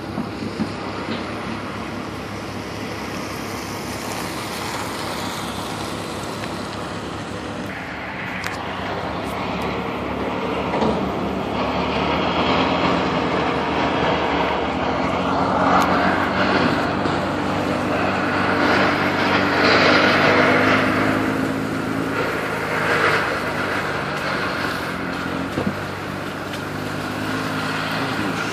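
A motor engine running steadily over a constant outdoor rumble. It grows louder about a third of the way in, its pitch shifting slowly, then eases again near the end.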